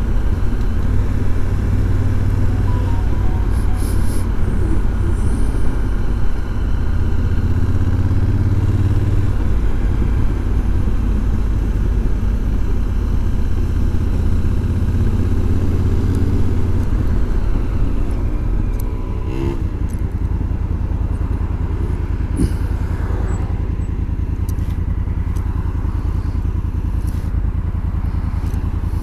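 Honda Africa Twin's parallel-twin engine running under way. About two-thirds of the way through, its note falls away as the bike slows, and it then runs on more quietly.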